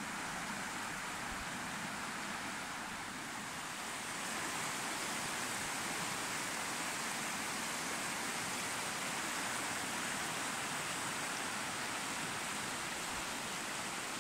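The Sieber, a Harz mountain river running high, rushing over rocks in whitewater rapids: a steady rush of water that grows a little louder about four seconds in.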